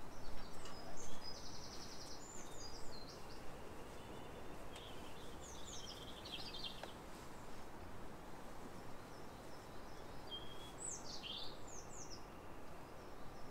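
Small songbirds singing over a steady background hiss: scattered high chirps and short phrases, with a rapid even trill about a second in and a few quick falling notes near the end.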